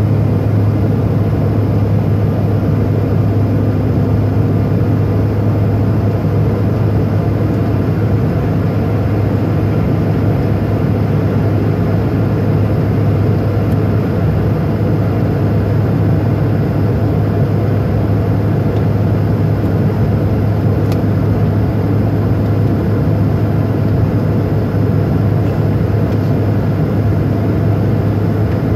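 Jet airliner cabin noise during the climb after takeoff: a loud, even drone of the engines and rushing air with a strong steady low hum, unchanging throughout.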